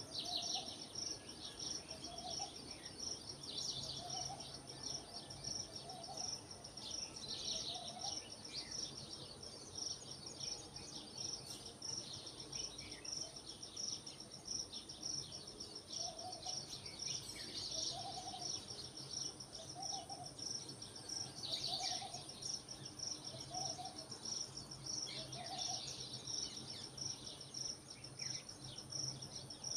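Outdoor dawn ambience of insects and birds: crickets or similar insects keep up a steady, high, pulsing trill, small birds chirp on and off, and a lower bird call repeats about every two seconds through much of it.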